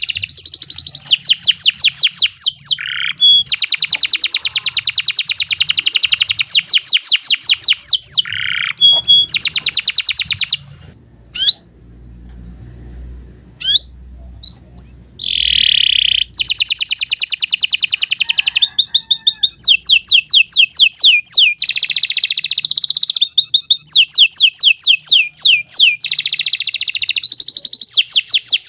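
Domestic canary singing a long song of rapid trilled rolls, fast repeated high notes. It breaks off for a few seconds near the middle, with only a couple of short chirps, then starts again.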